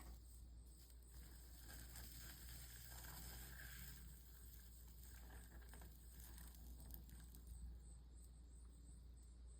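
Faint hiss and soft crackle of flux sizzling under a soldering iron as solder is run along a stained-glass seam, a little stronger in the middle stretch.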